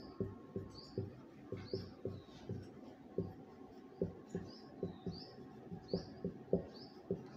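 Marker writing on a whiteboard: quick, uneven taps of the tip against the board, two or three a second, with short high squeaks as it drags through the strokes.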